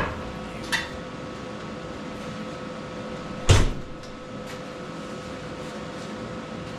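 A steady machine hum with a few knocks, and one loud sharp clunk about three and a half seconds in.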